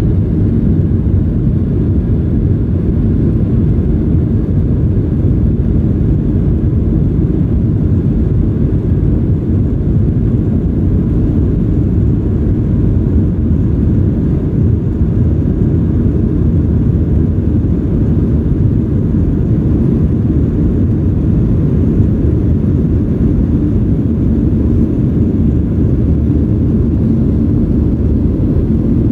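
Boeing 737-800's CFM56-7B jet engines and rushing airflow heard from inside the passenger cabin during the climb after takeoff: a steady, loud, low drone.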